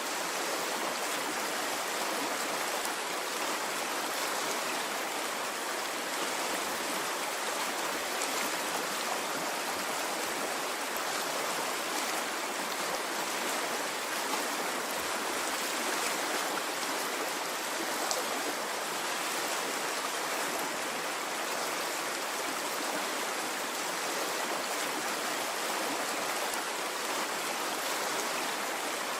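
Water flowing in a stream, a steady unbroken rush with no rise and fall of waves.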